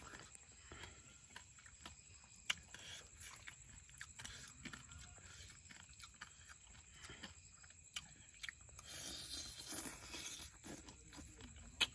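A person chewing and eating steamed egg and frog off a metal spoon, close to the microphone: soft mouth and chewing sounds with a few sharp clicks, the loudest about two and a half seconds in and again near the end.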